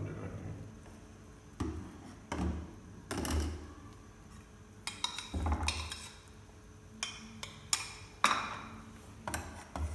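Steel spoon clinking and scraping against a stainless steel saucepan as custard mix is stirred into boiled milk: a series of irregular sharp knocks and clinks.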